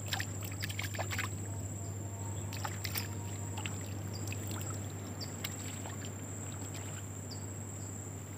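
Footsteps splashing through shallow water on a tidal mudflat, with scattered sharp splashes and clicks, most of them in the first few seconds. Behind them runs a steady wash of sea waves.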